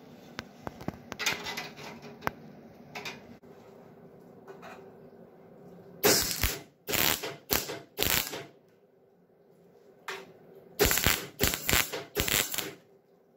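MIG welder tack-welding a steel tube into a cab door frame: four short bursts of arc about six seconds in and another four near the end. Before them come a few light clicks and knocks of metal.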